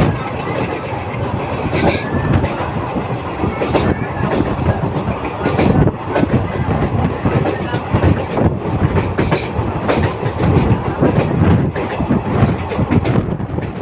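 Passenger train running along a railway bridge, heard from an open coach window: a steady, loud rumble of the coaches with irregular clatter of the wheels on the rails.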